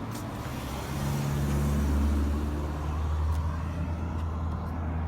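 A road vehicle's engine running, a steady low drone that grows louder about a second in.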